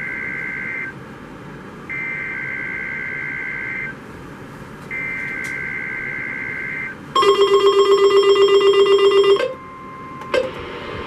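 Emergency Alert System SAME header on NOAA Weather Radio: three bursts of screechy two-tone digital data, each about two seconds long with a second's gap, carrying the code for a Required Weekly Test. Then a rapidly pulsing, buzzy electronic beep for about two seconds, followed by a faint steady tone and a click near the end.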